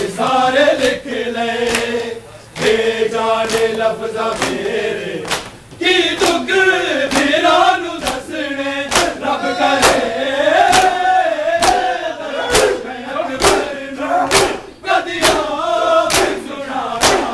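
A crowd of men chanting a noha (Shia Muharram lament) together, with sharp hand slaps on bare chests (matam) keeping a steady beat of roughly two a second.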